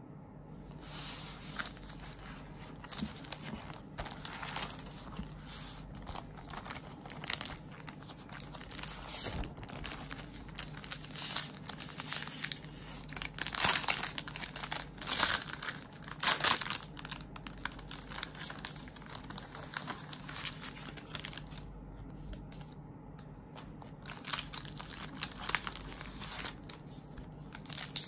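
Plastic packaging crinkling and rustling as hands handle a frosted plastic zip pouch and its clear plastic wrapping, in irregular crackles with the loudest bursts about halfway through.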